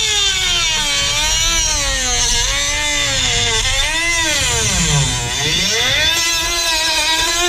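Dremel rotary tool cutting into an ATM topper panel: a high motor whine whose pitch sags and recovers several times as the tool is pressed into the cut, dipping lowest about five seconds in.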